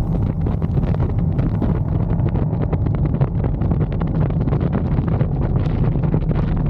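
Wind buffeting the microphone: a loud, steady low rumble with constant crackling.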